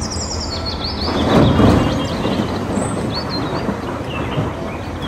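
Heavy diesel machinery running steadily while a loader bucket's load of earth pours into a steel dump-truck bed, a rushing rumble that swells about a second in and eases off. Birds chirp throughout.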